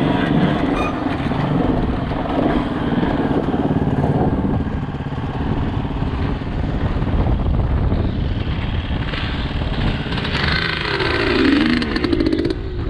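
Dirt bike engine running under the rider, heard over wind and rough-trail noise, with the engine note dipping and rising about eleven seconds in.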